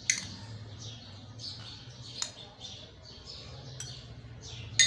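Metal spoon clinking against glass tumblers a few times as chopped peach pieces are spooned in, the sharpest clink near the end. Small birds chirp repeatedly in the background throughout.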